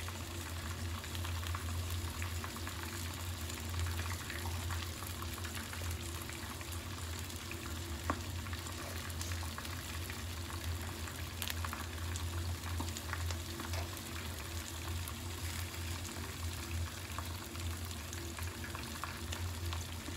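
Egg frying in oil in a nonstick frying pan: a steady sizzle, with a steady low hum underneath.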